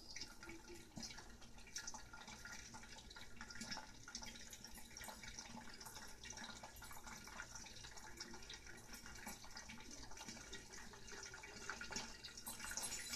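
Hot oil faintly sizzling and crackling with popcorn kernels in a lidded pot on the stove, with many small ticks; the kernels are heating but not yet popping.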